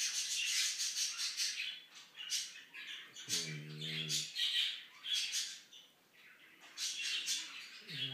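A dog wriggling on its back against fabric cushions: repeated scratchy rustling and rubbing of fur on cloth. A short low hum comes in about three seconds in.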